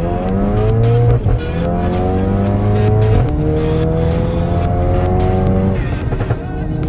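Tuned Audi TT Mk3 engine accelerating hard, its pitch climbing and dropping back at upshifts about a second in and again about three seconds in, over background rock music.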